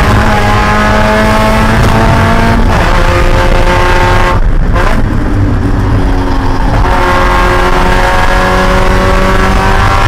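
Spec Miata race car's four-cylinder engine heard from inside the cockpit, revving up through the gears at full throttle. The pitch drops sharply about two and a half seconds in at a gear change. After about four seconds the note falls away briefly as the driver comes off the throttle, then climbs again from about seven seconds in.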